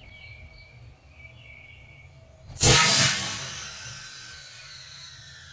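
Homemade pneumatic tennis ball launcher, a compressed-air tank with a PVC barrel, firing: one sudden loud blast of released air about two and a half seconds in, fading over the next two seconds as the ball is shot toward the top of a tree.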